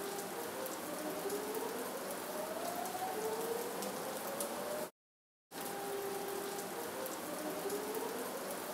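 Steady heavy typhoon rain falling, with faint rising tones underneath. The sound cuts out for about half a second near the middle, then the same stretch of rain repeats.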